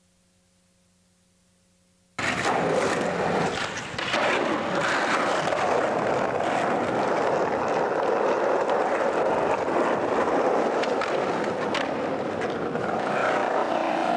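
About two seconds of near silence, then skateboard wheels rolling steadily over parking-lot asphalt, a loud continuous rolling noise with a few sharp clicks.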